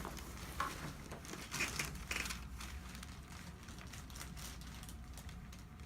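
Faint rustling and a few soft knocks from a person moving on a chiropractic treatment table, over a low steady hum.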